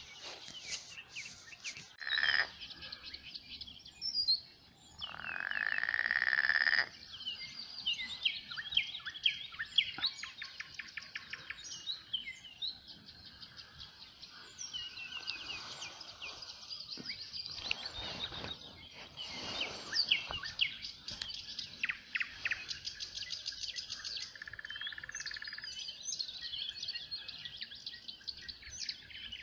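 Songbirds chirping and singing continuously in a spring dawn chorus. A louder sustained call of about two seconds stands out about five seconds in.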